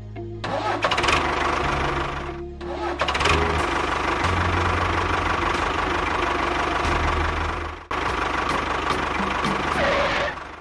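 Tractor engine running with music in the background; the engine sound breaks off briefly about two and a half seconds in and again near eight seconds, then carries on.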